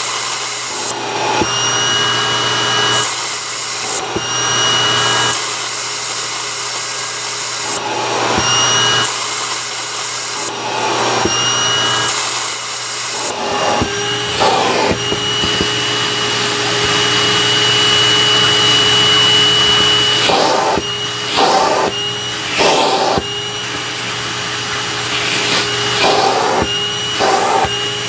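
National MC-250c vacuum cleaner running with its crevice tool: a steady motor whine under a high hiss that comes and goes every second or two as the nozzle is moved. About halfway through the hiss drops away, and near the end short bursts of rushing noise come and go about once a second.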